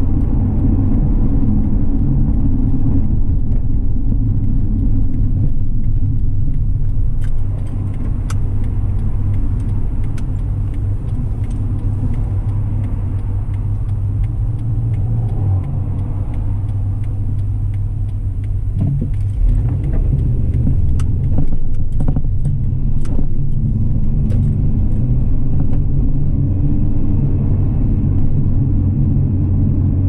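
A car being driven: steady low engine and road rumble, a little quieter for a stretch in the middle, with a few sharp clicks and knocks about two-thirds of the way through.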